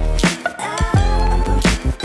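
Music with a deep bass line and a steady hip-hop or R&B style beat.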